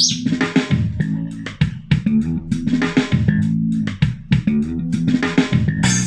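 Awei Y370 Bluetooth speaker playing back a song: plucked guitar and bass guitar over a drum kit keeping a steady beat.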